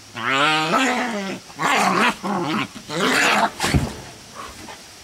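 A Scottish terrier and a Bouvier des Flandres growling and snarling at each other as they scuffle, in rapid wavering bursts for about three and a half seconds, then a thump and near quiet.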